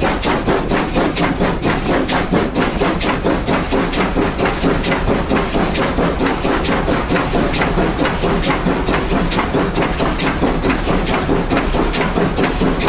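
Baldwin 2-8-2 steam locomotive working up a 1 in 40 grade, heard close at the driving wheels: a steady run of sharp exhaust beats, about four a second, over the running gear and wheels on the rails.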